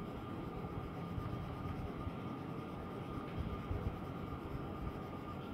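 Coloured pencil shading on a paper worksheet, a faint scratching with small irregular ticks over a steady low background hiss.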